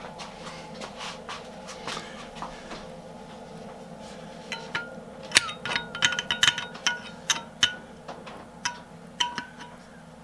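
Small metal-on-metal clinks with a brief bell-like ring, in quick irregular runs starting about four seconds in, from the metal parts of a Stanley Handyman eggbeater hand drill being handled as 50-50 penetrating oil is worked into its seized shaft. A faint steady hum lies under them.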